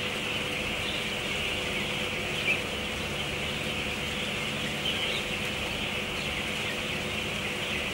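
The constant massed chatter of a large flock of broiler chickens about five weeks old, with a few single peeps standing out, over a steady low hum.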